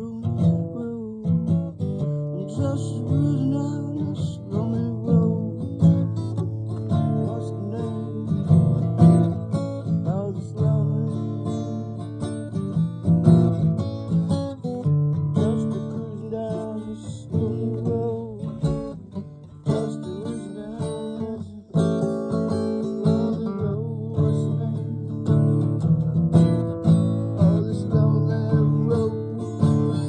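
Acoustic guitar being played, with ringing chords and a brief dip in loudness about two-thirds of the way through.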